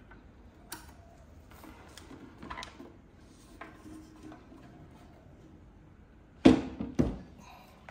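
Two thumps about half a second apart as the Eversolo DMP-A8 streamer-DAC is turned over and set down on a table, after a few faint clicks and rustles of handling.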